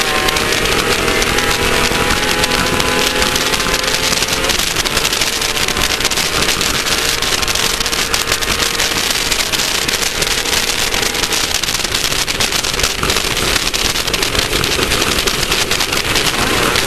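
Class 1600 off-road race car's air-cooled VW 1600 engine running at speed, its pitch shifting a few times, under a loud, constant rush of noise and dense rattling.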